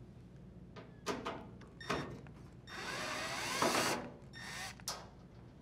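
Drill driver backing out a screw from a dryer's sheet-metal front panel. It runs for over a second, then again briefly, with a few sharp clicks before and after.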